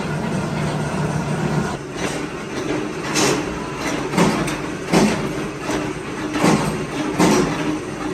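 A steady machine hum, then, about two seconds in, a flywheel-driven mechanical power press stamping scrap compressor steel: about six sharp metal strikes, one every second or less, each ringing briefly.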